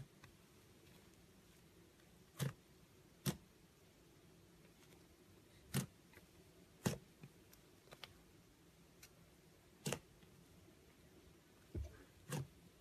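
Thick white slime being pressed and folded by hand, giving faint, irregular clicking pops, about eight of them.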